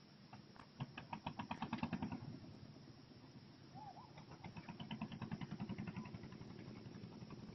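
Fishing reel clicking in two runs of fast, even ticks: the first for about a second and a half from about half a second in, the second for about two seconds from about four seconds in. A short whistled note comes just before the second run.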